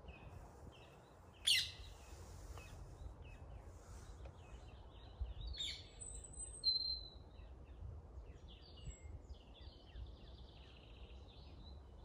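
Several woodland songbirds calling and singing: short chirps and whistles, with two sharp loud calls about one and a half seconds and about six seconds in, and a buzzy trill near the end. A steady low rumble lies underneath.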